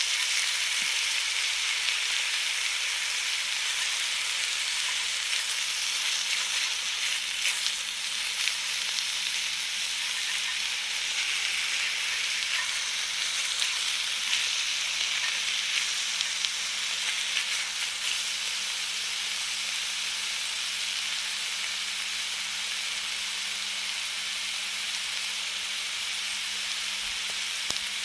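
Food sizzling on a hot grill: a steady hiss with small crackles and pops all through.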